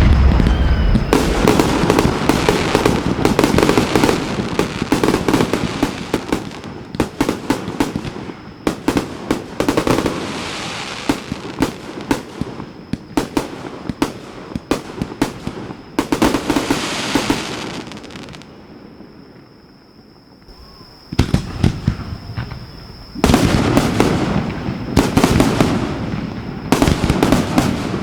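Fireworks launched and bursting at close range: a dense run of sharp reports and crackle in quick succession. It thins out about two-thirds of the way through, then picks up again into more rapid volleys near the end.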